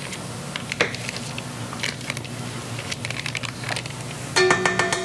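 Soft scattered taps and scrapes of a knife working a stick of butter on a board, then near the end a sharp clink of a utensil against a dish that rings on with a steady bell-like tone.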